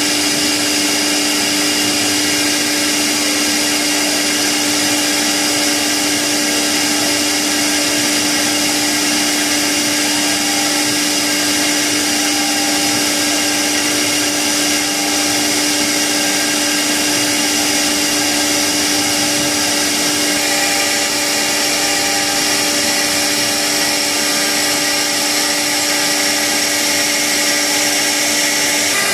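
CNC router's electric spindle running steadily at speed while its bit cuts a slot into a white-faced wooden disc: a steady whine of several high and low tones over a continuous cutting hiss.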